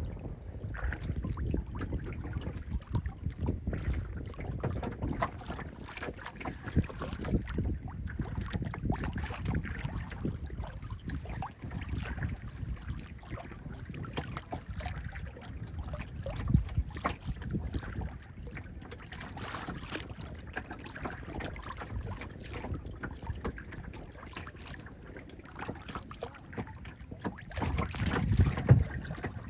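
Wind buffeting a phone's microphone on a moving boat, with the hiss of the lake water around it: an uneven low rumble with irregular bumps and a few louder gusts, the strongest near the end.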